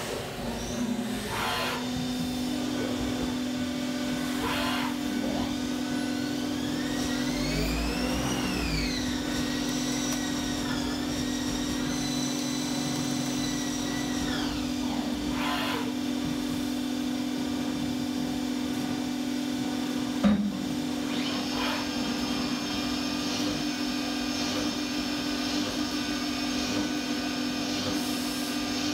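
Haas ST-10Y CNC lathe machining an aluminum part: a steady spindle-motor hum, high whines that rise, hold and then fall in the middle, short bursts of cutting noise, and one sharp knock about two-thirds through.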